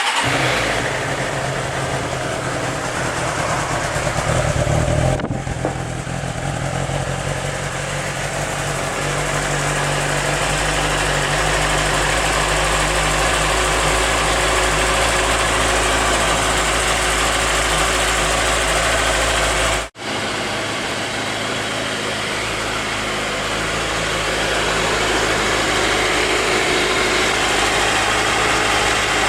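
Suzuki GSR600 inline-four motorcycle engine idling steadily. The sound cuts out for an instant about twenty seconds in and picks up again.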